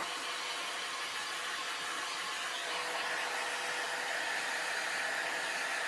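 A 2200-watt handheld hair dryer running steadily: an even rush of blown air with a faint steady hum.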